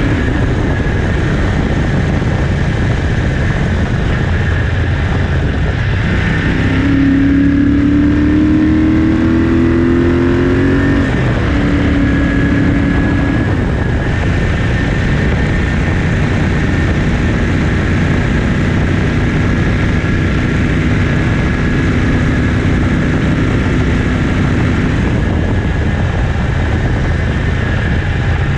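1974 Ducati 750GT's air-cooled 90-degree V-twin, with stainless-steel Conti replica exhaust, running on the road with wind rush. About seven seconds in, the engine note rises and gets louder under acceleration. Around eleven seconds it drops sharply at a gear change, then holds steady at cruise.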